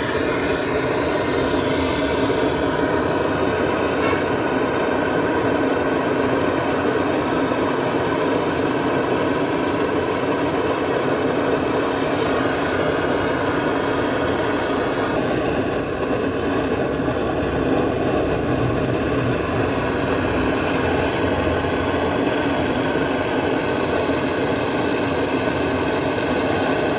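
Brazing torch flame running with a steady roar while a copper tube joint is heated.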